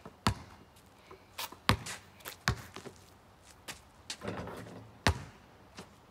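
Basketball bouncing on a paved driveway as it is dribbled, a sharp bang with each bounce at irregular spacing. A brief scuffing noise comes about four seconds in, and the loudest hit comes about five seconds in.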